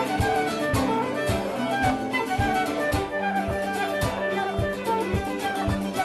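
Traditional Irish music played live: a fiddle carrying a quick tune over a steady accompanying beat of about two strokes a second.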